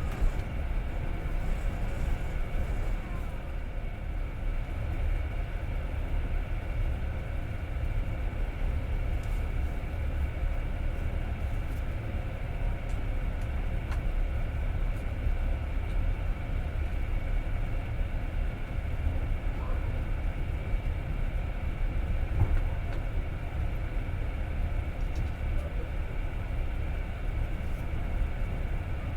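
Passenger train running steadily, heard from inside the carriage: a continuous low rumble of wheels on rails with a few faint clicks.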